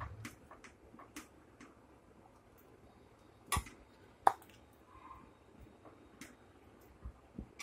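A metal ladle serving curry from a pot into a bowl: scattered light clicks and taps of the ladle against the pot and bowl, with two sharper knocks about three and a half and four seconds in.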